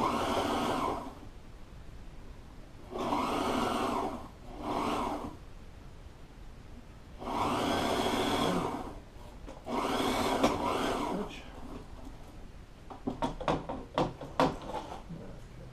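Electric sewing machine running in five short spurts with pauses between, stitching a curved seam in an upholstery cover. A cluster of clicks and knocks follows near the end.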